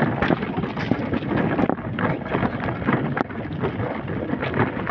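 Wind buffeting the microphone, mixed with a dense rattling rumble of movement full of small clicks and knocks.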